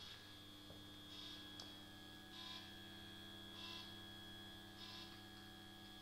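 Near silence: a faint, steady electrical hum, with a soft high pulse about every second and a quarter.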